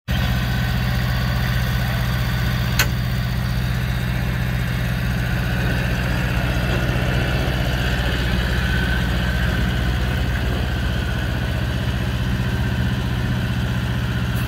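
Engine of a ride-on miniature railway locomotive idling steadily, with one sharp click about three seconds in.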